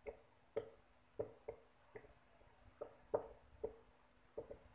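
A run of faint soft clicks, about two a second: a knife cutting chunks off a boiled, peeled potato held in the hand, the pieces dropping into a bowl.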